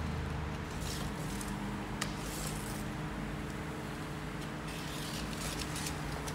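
Brief rustles and scratches of a cardboard template being shifted on a sheet of sound-deadening material and traced with a marker, with a sharp click about two seconds in. A steady low hum runs underneath.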